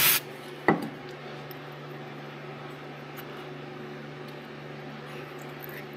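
A steady low mechanical hum, with one sharp click a little under a second in; a short hiss cuts off right at the start.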